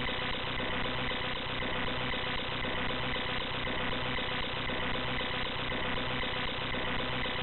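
Steady, harsh computer-generated buzzing drone played by the Profect.exe malware through the computer's audio, with a few fixed tones held through it and no break or change.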